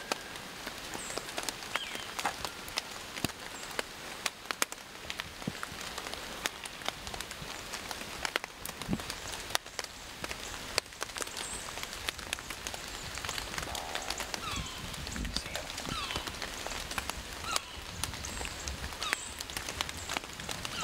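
Rain dripping onto dead leaves and forest floor: many irregular sharp ticks over a steady hiss, with a few faint high chirps.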